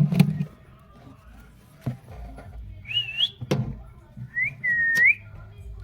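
Sun conure chewing at the wooden nest box, giving a few sharp clicks and knocks, with two clear whistles: a short wavering one about halfway through, then one that holds a steady note and rises at the end.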